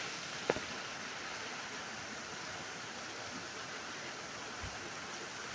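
Small waterfall: a steady rush of falling water, with a single sharp click about half a second in.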